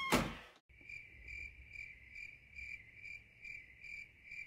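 A brief burst of noise, then cricket chirping: one high chirp repeated evenly about twice a second, quiet and steady, starting just under a second in.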